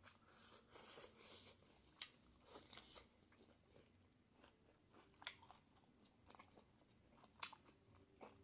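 Faint close-up eating sounds: a person chewing pork and bamboo shoots, with crunchy bites and a few sharp mouth clicks scattered through.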